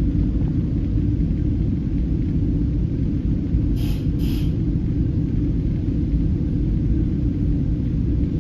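Steady low rumble inside a moving NJ Transit Comet V passenger coach: wheels on rails and running gear carried through the car body. Two brief sharper noises come about four seconds in.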